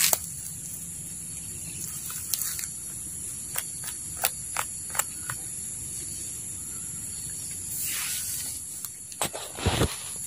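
Steady high drone of insects in the forest, with a few sharp clicks in the middle. Near the end, rustling and a low knock as a fallen durian is picked up off the ground and handled close to the microphone.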